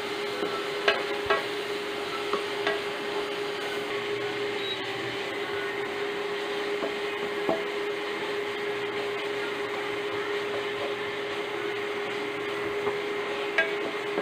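Minced pork sizzling gently as a wooden spatula stirs and scrapes it around a coated wok, with a few light taps of the spatula against the pan. A steady hum runs underneath.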